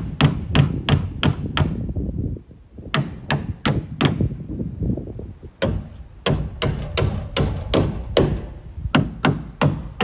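Claw hammer driving nails into wooden framing: sharp, even strikes about three a second, in three runs with short pauses between them.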